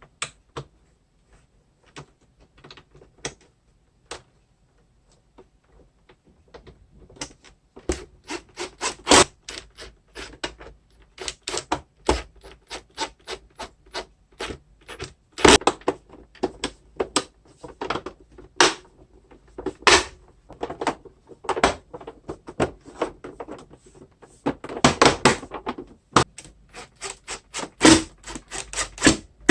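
Plastic housing parts of a Samsung VC-B935Z vacuum cleaner being handled and fitted back together: a run of sharp clicks and knocks, sparse at first, then coming thick and fast from about seven seconds in.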